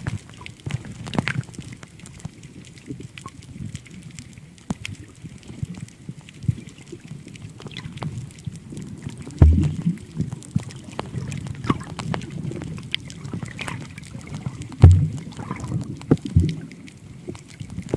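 Sea water sloshing and gurgling around a camera held at or just under the surface while snorkelling, with many scattered clicks and two heavy low thumps, about nine and fifteen seconds in.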